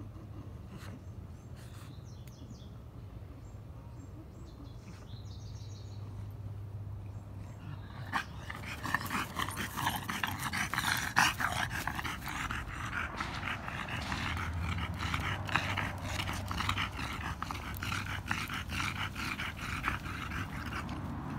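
French Bulldog sniffing and breathing noisily close to the microphone: a rapid run of short noisy puffs that starts about eight seconds in, over a low steady hum.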